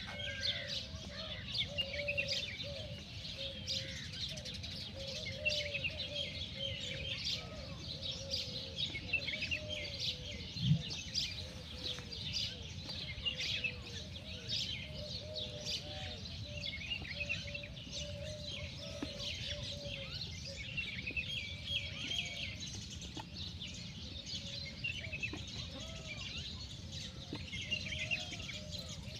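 Many small birds chirping and twittering, over a steady run of short, lower arched calls. One brief low bump about ten seconds in.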